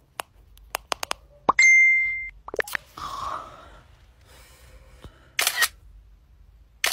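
A quick run of sharp clicks, then a single steady beep lasting under a second, the loudest sound here, and a short hiss near the end.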